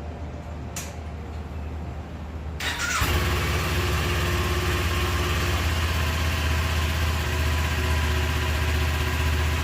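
Kawasaki Ninja 400 parallel-twin motorcycle engine idling. The sound jumps in level about three seconds in and then runs steadily.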